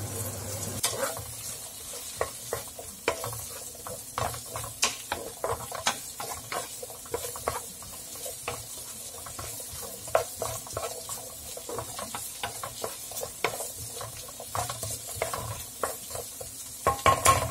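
Diced potato and onion frying in melted butter over medium heat, sizzling, while a wooden spatula stirs them, scraping and knocking against the pan many times at an irregular pace.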